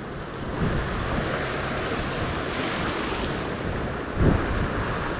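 Ocean surf washing through the shallows, with wind buffeting the microphone; a short louder rush about four seconds in.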